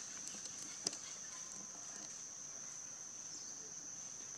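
Steady high-pitched drone of insects in the forest, with a single sharp click about a second in.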